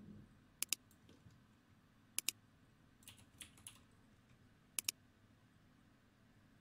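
Clicking of computer input at a desk: three quick double clicks spread a second and a half to two and a half seconds apart, with a few softer taps in between, over quiet room tone.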